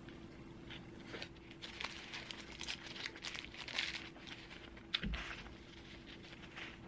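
Close-up eating sounds: a sandwich being chewed while its paper wrapper crinkles in the hands, with a soft knock about five seconds in.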